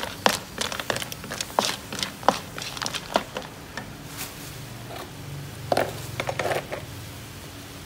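Spotted babylon sea snail shells clattering against a wok as a wooden spatula stirs them, in quick irregular clicks for the first three seconds, then a few scattered clicks and a short burst a little before the end.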